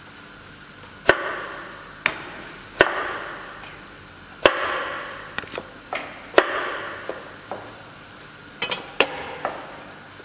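Chef's knife chopping potato batons into cubes on a plastic cutting board: about a dozen sharp knocks of the blade striking the board at an uneven pace, several followed by a short fading hiss.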